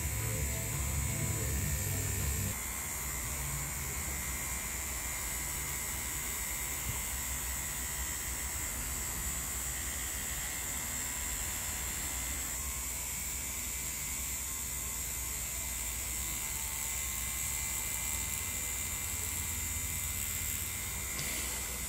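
Tattoo machine running steadily as the needle pulls lines, a constant electric buzz with a high whine over a low hum. The low hum is heavier for the first couple of seconds, then eases.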